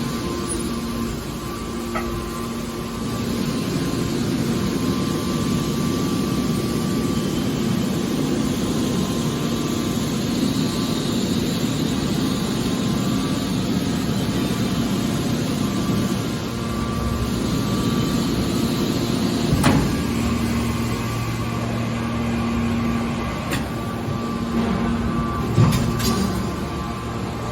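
Hydraulic metal baler running: a steady machine hum with a constant whine, broken by a few sharp metallic knocks, the loudest about two-thirds of the way through and again near the end.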